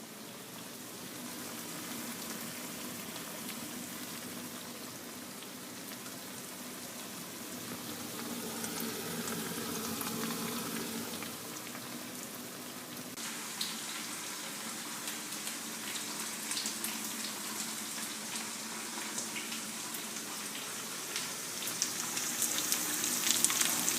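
Food cooking in a pot or pan on the stove, a steady sizzling hiss with more crackling from about halfway through.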